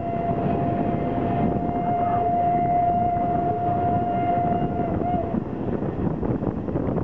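Whistle of the 141R 840 steam locomotive sounding one long steady blast over the running noise of the moving train and wind on the microphone; the whistle wavers and stops about five seconds in.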